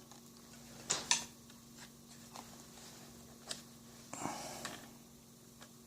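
A few light clicks and knocks as a detachable bow quiver is handled and fitted into its quick-detach mounts, with a short rustle about four seconds in.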